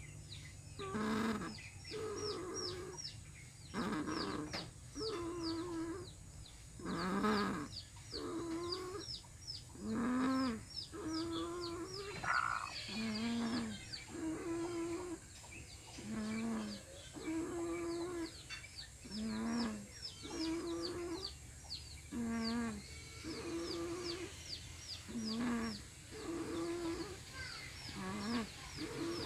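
A chicken making a repeated snore-like call, a low pitched note about every second and a half. Rapid short high chirps run underneath the whole time.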